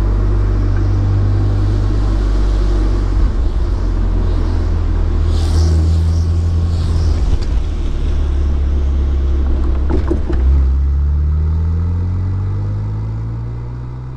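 BMW Z4 E85 roadster running on the road with a steady low rumble; from about eleven seconds in its engine note climbs in pitch as it accelerates, and the sound fades out near the end.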